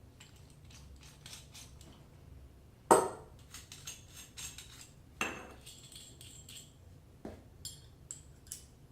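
Hard faucet and drain-assembly parts being unpacked and set down: light clicks and clinks, then three sharp knocks with a short ring, the first about three seconds in and the loudest.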